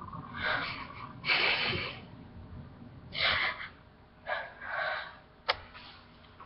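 A woman crying without words: about five separate sniffs and sharp breaths, followed by a single sharp click near the end.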